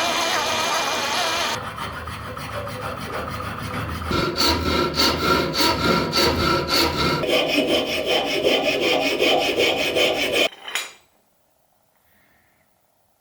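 Abrasive scraping on a steel knife blade made from leaf spring, as in filing or sanding, in a few abruptly changing stretches with quick repeated strokes. It cuts off sharply about ten and a half seconds in, leaving near silence.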